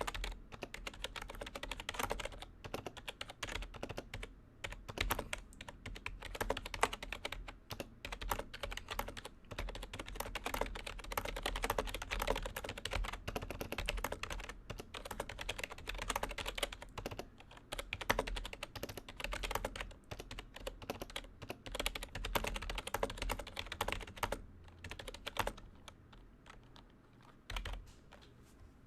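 Continuous fast typing on a Lenovo Preferred Pro II computer keyboard, a dense patter of key clicks. Near the end it thins out to a few last keystrokes.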